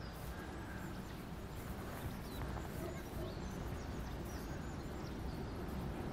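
Outdoor ambience on an open field: a steady low rumble of wind on the microphone, with a few faint, short bird chirps scattered through it.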